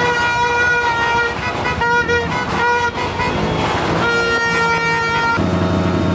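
Vehicle horns honking in long held blasts with short breaks between them. A lower, buzzier horn takes over about five seconds in.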